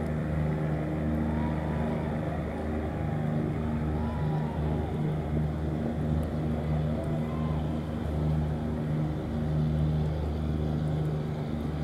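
A steady low engine hum that fades in and out, with faint short rising-and-falling calls over it.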